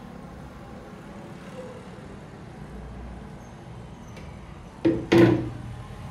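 Two sharp knocks about a third of a second apart, near the end, the second with a short ring: the Silver Crest blender jug being knocked down on a hard surface after the batter has been poured out. Before them only a faint, even background.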